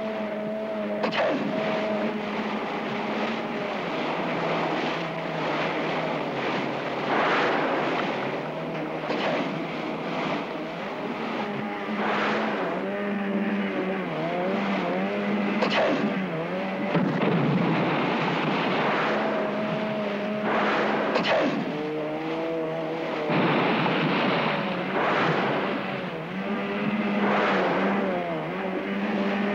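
Boat engine running, its pitch dipping and rising several times as the throttle changes, with repeated surges of splashing water and spray.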